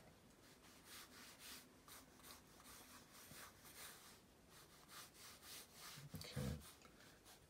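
Pencil sketching on paper: faint, repeated short scratchy strokes of graphite. A brief low voice sound comes about six seconds in.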